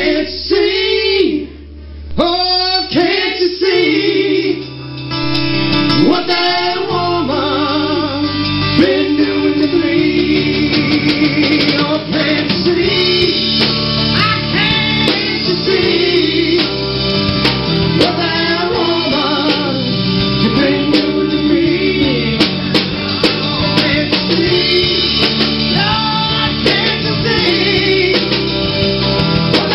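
Live rock band playing a classic rock song: singing over acoustic and electric guitar and bass at first, then the full band with drums comes in after about seven seconds and carries on steadily.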